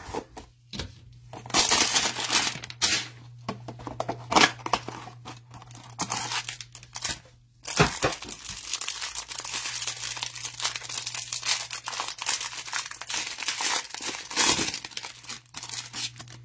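Packaging of a trading-card hanger box being torn open by hand, with irregular crinkling and tearing and a few sharper rips.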